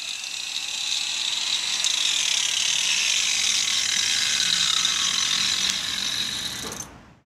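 Angle grinder with a diamond blade running at speed, a steady high whine that dies away shortly before the end.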